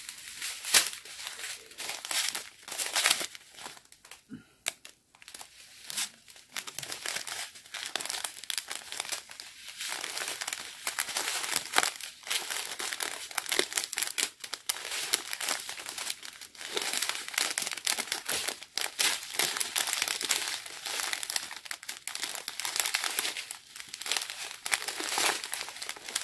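Small clear plastic bags of round diamond-painting beads crinkling as they are handled one after another, with a short lull about five seconds in.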